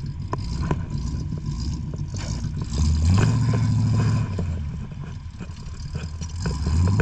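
Jeep engine running and revving: a hard rev about three seconds in lasts about two seconds, and another rev builds near the end. There are scattered sharp clicks and knocks throughout.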